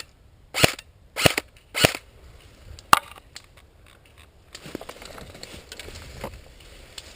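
Airsoft gun firing: three short shots about 0.6 s apart, then a single sharper crack about three seconds in, followed by a stretch of rustling movement noise.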